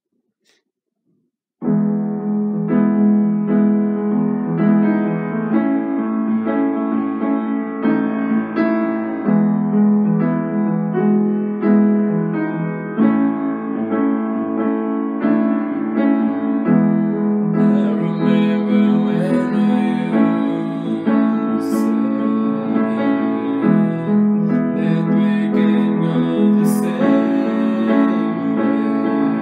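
Piano playing an accompaniment of repeated chords. It starts about two seconds in, after a brief silence.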